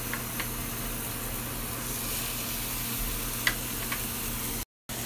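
Steak sizzling as it sears in a hot frying pan: a steady hiss with a few scattered pops, over a low steady hum. The sound cuts out briefly near the end.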